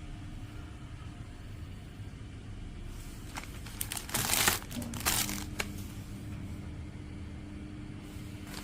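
Packaging crinkling and crackling in a cluster of quick bursts for about two seconds midway, over a steady low hum.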